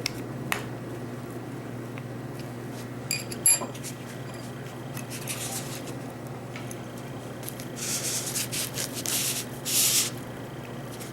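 Handling noise from small hardware: a few sharp clicks and light metallic taps, then bouts of rubbing and scraping in the last few seconds, over a steady low hum.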